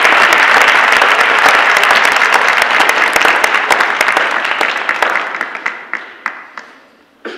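Audience applauding, dense and loud at first, then thinning about five seconds in to a few scattered claps that die away near the end.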